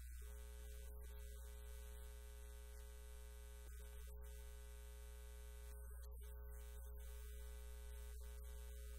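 Steady low electrical mains hum, with faint steady higher tones over it and no speech: a buzz left on the recording where the preacher's microphone feed is not coming through.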